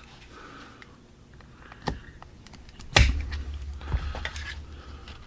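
A few small, sharp metallic clicks and taps as a pin punch pushes out the pin holding the fire control unit in a SIG P365 pistol frame, with handling noise; the loudest click comes about three seconds in.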